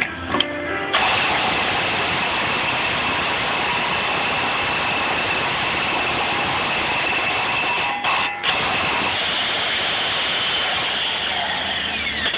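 Pneumatic air hammer with a punch bit hammering rapidly against a wheel stud in the hub flange, driving the stud through. It runs continuously, stops briefly about eight seconds in, then starts again.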